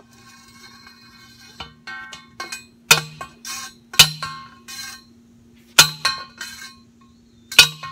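Hand post driver, a steel tube slid over a steel fence post, being slammed down to drive the post into the ground. Four loud metallic clangs come a second or two apart, with lighter knocks between them, and each clang leaves a brief ringing tone.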